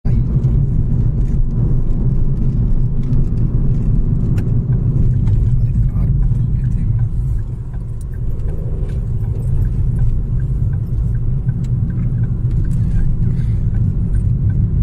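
Car driving, heard from inside the cabin: a steady low rumble of engine and road noise, easing off briefly about halfway through.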